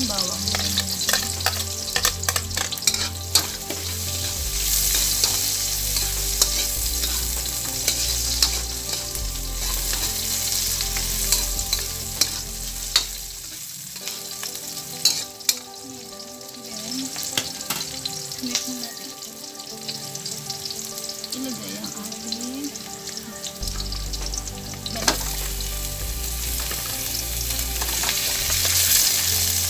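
Onions and garlic sizzling in hot oil in a wok while they are stirred, with frequent clicks and scrapes against the metal. Near the end, pieces of boiled chicken are tipped in and the frying gets louder.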